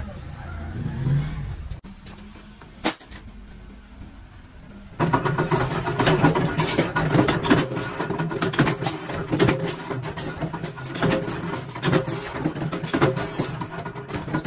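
Workshop machinery running: after a quieter stretch with a single sharp knock, a loud motor-driven machine starts abruptly about five seconds in and keeps going, with a steady hum and rapid rattling clicks.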